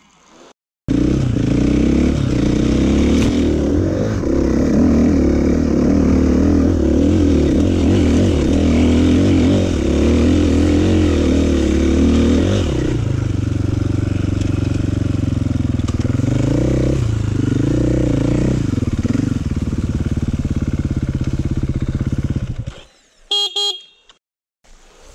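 Dirt bike engine under hard throttle, its pitch rising and falling with the revs, then running steadier with a few dips before cutting off abruptly. A short pulsed beep follows near the end, and then the engine comes back in, rising.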